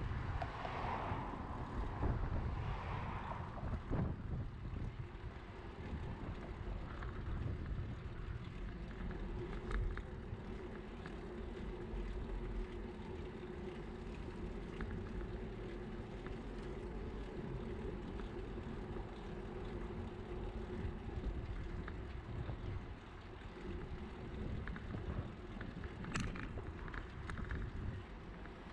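Wind on the microphone and steady road rumble from riding a bicycle along a busy city road, with a car passing close by in the adjacent lane during the first few seconds.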